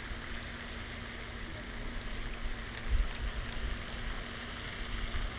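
Wind rumbling on the microphone over a steady outdoor hiss, with a gust about three seconds in. A faint steady hum runs underneath and stops near the end.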